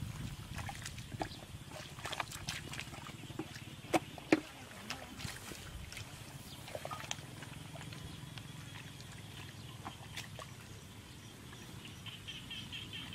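Hands and legs working through a shallow muddy puddle: scattered splashes and wet mud squelches over a steady low background noise, with two sharp smacks close together about four seconds in.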